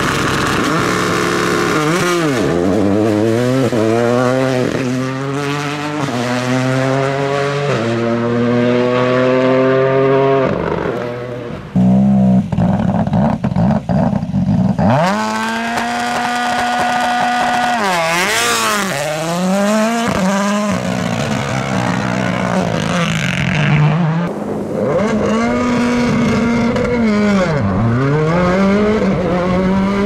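Turbocharged rally cars doing launch-control starts, one after another. Each engine is held at a steady high rev, then launches and climbs through several quick upshifts, the note stepping up in pitch between shifts. About twelve seconds in, a rough, crackling stretch comes in abruptly and loud, before the next held launch rev.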